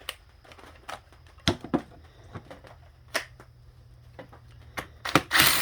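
Scattered light metallic clicks and clinks of tools and transmission parts being handled on a workbench, then a short burst of a power drill running near the end.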